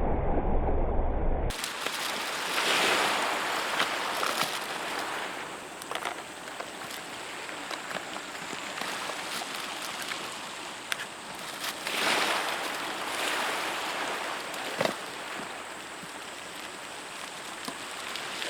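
Sea waves washing onto a beach: a steady rushing that swells louder twice, with a few scattered sharp clicks.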